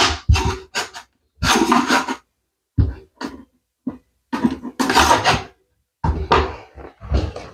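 Metal putty knives and a pry tool scraping and working behind a wooden baseboard to pry it from the wall, in short irregular bursts with brief pauses between them.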